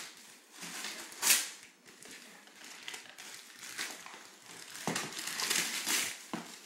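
Gift wrapping paper being ripped and crumpled as a present is unwrapped by hand: a sharp tear about a second in, then more rustling and tearing near the end.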